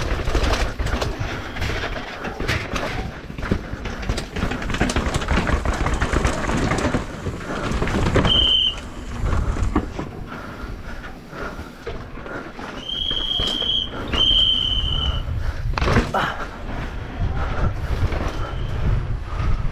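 Downhill mountain bike rattling and clattering at speed over concrete alleys and steps, with wind on the microphone. A high steady squeal cuts in briefly about 8 seconds in and twice more, a second or so each, between 13 and 15 seconds.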